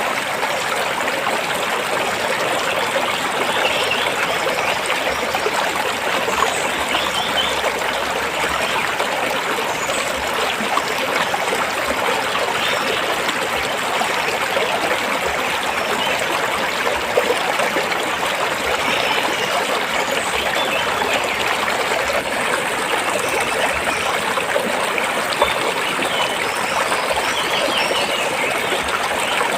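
Stream water flowing and trickling between rocks, a steady, unbroken rush.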